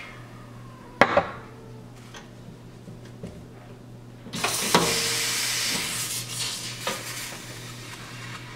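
ECM Technika espresso machine's steam wand being purged: a sudden hiss of steam about four seconds in, loud for a second or so and then fading away over the next two seconds. Earlier, about a second in, come two sharp knocks.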